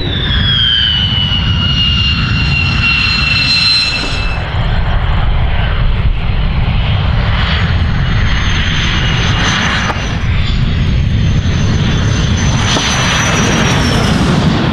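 Military jet engines on and over the runway: a loud, steady jet roar with a high turbine whine that slides down in pitch over the first four seconds. After two abrupt cuts come two more passes with a higher whine, the later shots being a Panavia Tornado's RB199 turbofans as it rolls along the runway.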